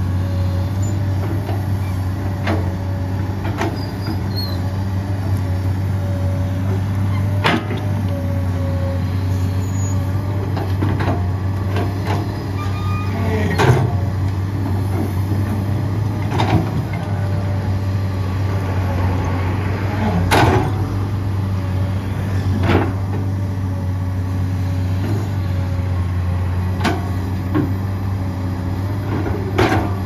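Komatsu PC200-8 hydraulic excavator's diesel engine running steadily under working load, with a dozen or so sharp clanks and knocks scattered through it as the machine works.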